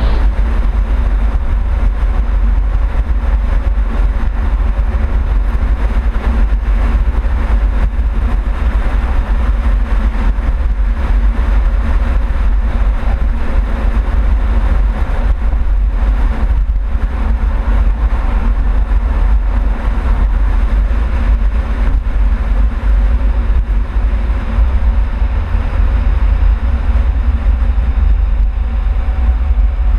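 Honda Civic Type R on the move, heard from a camera mounted on the outside rear of the car: a loud, steady low rumble of exhaust and road noise with an even hiss over it.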